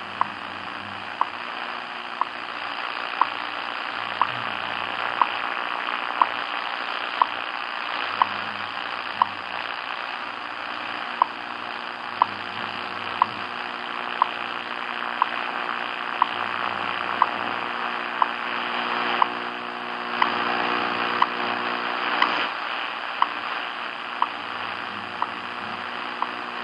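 WWV time signal on 10 MHz shortwave: a short sharp tick once a second over steady static hiss, with one tick skipped about ten seconds in (WWV leaves out the 29th-second tick). The hiss swells a little near the end, and faint low pulses of the station's time code run underneath.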